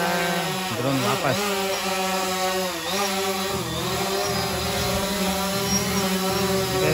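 White quadcopter drone's propellers whining as it hovers and comes down to land, the pitch dipping and recovering a couple of times as the rotors change speed.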